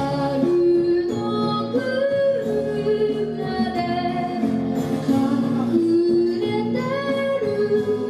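Live music: a girl singing a children's song to guitar accompaniment, holding long notes.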